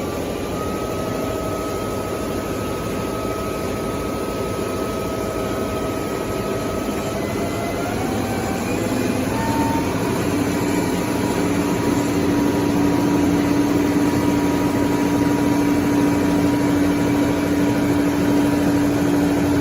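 Spiral duct forming machine running: a steady mechanical hum with several whining tones, which shift in pitch and grow a little louder about eight to ten seconds in.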